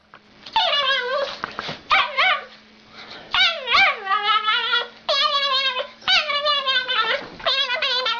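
A dog whining and yowling: a run of high, wavering calls, about one a second, each sliding up and down in pitch.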